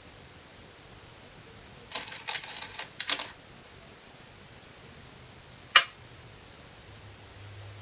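Glass go stones clicking and clattering against each other for about a second, then a single sharp clack of a 10.2 mm glass stone placed on a thick Shinkaya floor go board, the loudest sound, near six seconds in.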